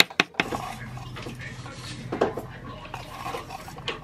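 Two last knife chops on a wooden cutting board. Then a spoon clinks a few times against a glass mixing bowl and a plastic container while red pepper flakes are scooped, with a low steady hum under it.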